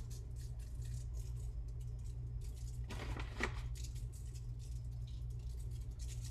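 Sugar sprinkled by hand over pastries on a parchment-lined sheet pan: a fine, irregular crackling patter of falling grains, with a denser rustle about three seconds in, over a steady low hum.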